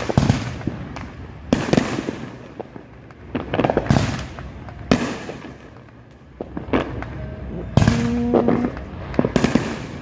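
Neighbourhood fireworks going off: about eight loud bangs spaced a second or so apart, each trailing into crackling. About eight seconds in there is a brief steady tone.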